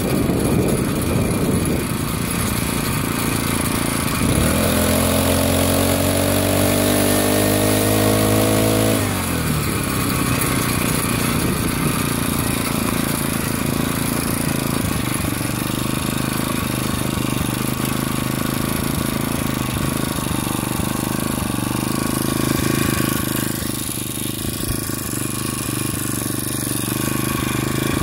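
Motorized bicycle's small gas engine kit running under way. For several seconds its pitch climbs as it accelerates, then it drops sharply as the throttle is let off, and it settles back to a steady, lower run.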